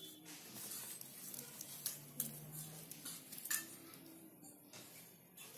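Large green leaf rustling and crinkling as hands fold it and stuff it into a bamboo tube, with a few sharp clicks and crackles.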